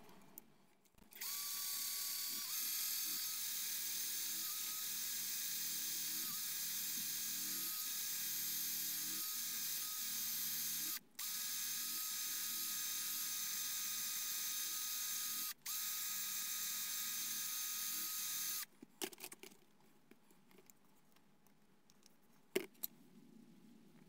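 Small rotary tool with a brush attachment running at a steady high whine as it scrubs rust off a pocket-knife blade. It cuts out briefly twice and stops after about seventeen seconds, followed by a few light handling clicks.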